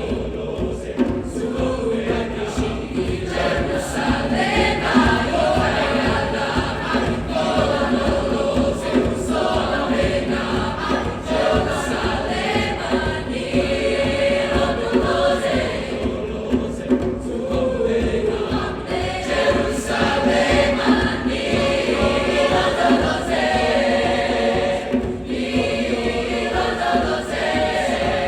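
A choir singing a seasonal concert piece, many voices holding long notes together.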